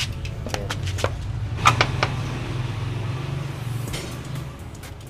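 Honda Click V2 scooter's single-cylinder engine idling through a newly fitted JVT V3 adjustable aftermarket exhaust, a steady low putter that fades near the end. Several sharp metallic clicks and clanks of tools or parts sound over it.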